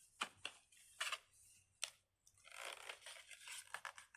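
Faint handling of crinkly packaging: a few sharp clicks and taps, then from about halfway through a continuous crinkling and rustling.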